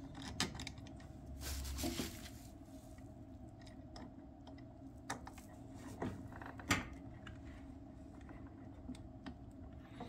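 Faint handling sounds of a screw being driven back in by hand inside a furnace cabinet. There is a short scrape near the start and a few sharp clicks, the loudest about two-thirds of the way through, over a steady low hum.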